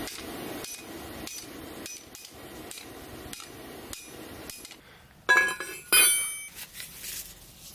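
Hand hammer blows on a red-hot truck leaf spring on an anvil, about one every two-thirds of a second for the first four and a half seconds. Then two loud ringing clangs of the steel bar, about five and six seconds in.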